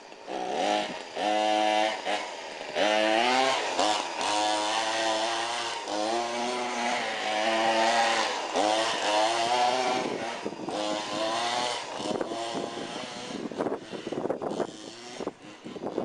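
Remote-control Baja buggy's small engine revving up and down over and over as the buggy is driven, each throttle burst a rising then falling whine. It fades and gets more uneven near the end as the buggy moves off.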